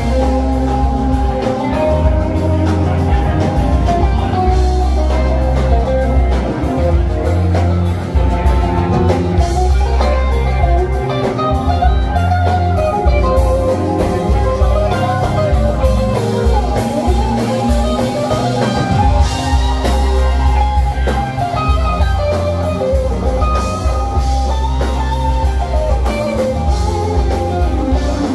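Live rock band playing an instrumental jam: electric guitar lines over drum kit and bass, loud and continuous through the club PA.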